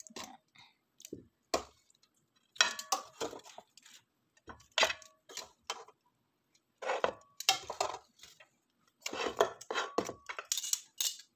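Clinks and scraping clatter of a utensil against a metal non-stick pan, in short bursts every second or so, as pieces of lamb are laid in it.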